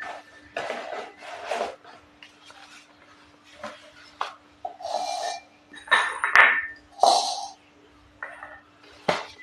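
Slate pencils being bitten and chewed: a string of irregular crisp crunches and mouth sounds, with a faint steady hum underneath.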